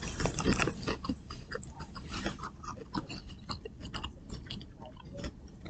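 A person chewing food with many small, irregular crunches and mouth clicks.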